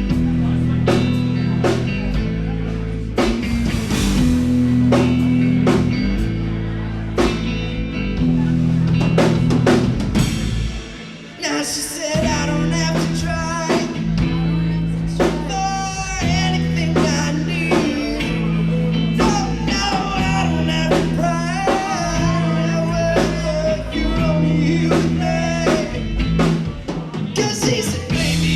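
Live band playing a song on drum kit, bass and guitar with a steady beat. The music drops briefly about eleven seconds in, then the full band comes back in with a wavering lead melody over it.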